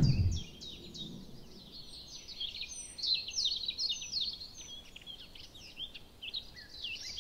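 A whoosh at the very start, then birds singing: a dense run of short, high chirps, each sweeping downward, thinning out near the end.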